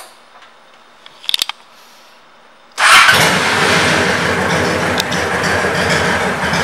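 2007 Honda Shadow 750 Aero's 745 cc V-twin, fitted with Cobra aftermarket pipes, being started. A short burst of noise comes about a second in. The engine fires at about three seconds and settles into a steady idle.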